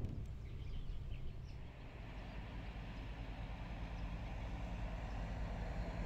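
Outdoor ambience: a steady low rumble with a few short bird chirps in the first second or so, and a steady low engine-like hum that comes in about two seconds in and slowly grows louder.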